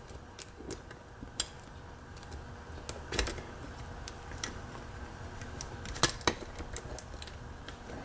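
Scattered small metallic clicks and taps from a 10-pin dimple-lock half cylinder being handled in a vise, as the picked plug is worked back toward the locked position. The clicks come a second or more apart, loudest about six seconds in.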